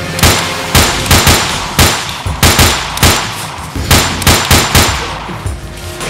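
Gunfire sound effects: a string of about fifteen sharp shots in quick, irregular runs of two to four, like a firefight.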